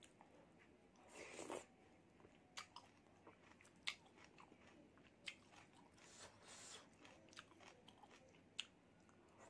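Faint close-miked eating sounds of noodle soup: wet chewing and mouth clicks, with a louder slurp about a second in and sharp clicks every second or two.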